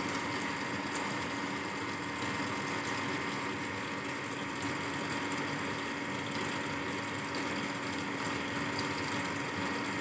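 Denpoo DWF-073HT single-tub automatic top-loading washing machine running its normal wash cycle: a steady, even mechanical hum.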